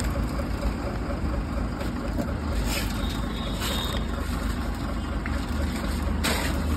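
A vehicle engine idling steadily with a low rumble. A few light clicks of metal parts being handled sound over it.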